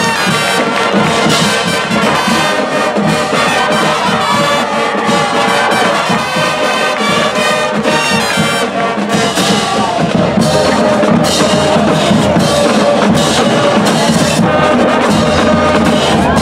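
High school marching band playing a brass-led tune, with flutes and a snare drum line keeping a steady beat.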